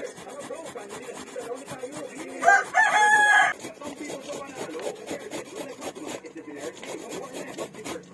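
Cooked sweet potato rubbed against a metal box grater in repeated scraping strokes. A rooster crows once about two and a half seconds in, a held pitched call of about a second that is louder than the grating.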